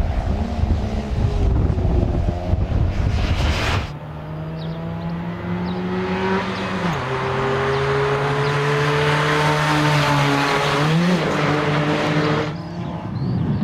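Nissan Micra rally car's engine revving hard through a stage, the pitch climbing and then dropping at gear changes about seven and eleven seconds in. In the first four seconds heavy wind buffeting on the microphone covers the engine.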